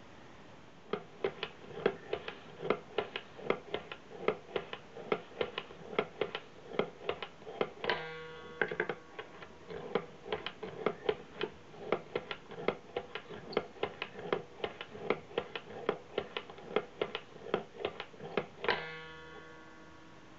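Paul Spooner's Elk Hunt automaton being hand-cranked: its wooden mechanism clicks about three times a second. Twice, about eight seconds in and again near the end, a bong rings out and dies away over about a second, the automaton's sign that the hunter has fired at the elk.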